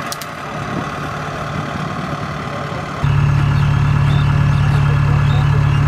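Kubota DC70 combine harvester's diesel engine running steadily at idle. About three seconds in, the sound abruptly becomes much louder and heavier in the low hum, as if heard right beside the machine.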